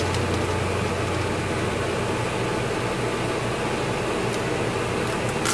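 Steady background hiss with a low hum that drops away about halfway through, and a few faint crinkles as a plastic snack wrapper is handled.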